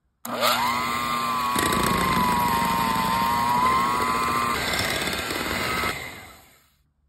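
KitchenAid electric hand mixer running, its beaters working cream cheese and icing sugar in a glass bowl. The motor whine rises as it spins up at the start, holds steady, and dies away about six seconds in.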